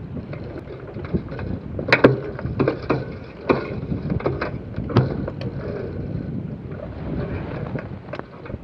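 Wind rushing over a microphone at the masthead of a Sonar keelboat under sail, with a string of sharp knocks and rattles from the mast and rigging, the loudest about two seconds in.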